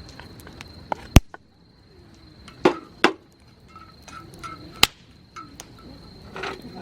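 A few sharp knocks or cracks, the loudest a little over a second in and others around three and five seconds, with small clicks between. Behind them runs a steady high-pitched insect trill.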